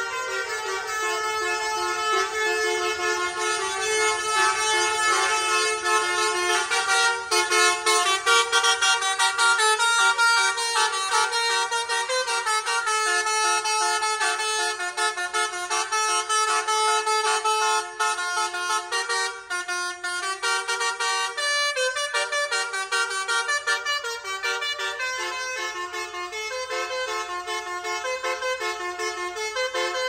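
Indonesian 'telolet' bus air horn, a multi-trumpet Basuri horn set, played as a tune from a pianika-style keyboard. Several horn tones sound together and change note in quick succession, with a few short breaks a little after two-thirds of the way through.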